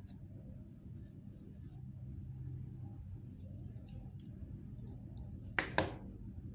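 Faint ticks and rustles of craft materials being handled on a table, with two sharp knocks close together about five and a half seconds in.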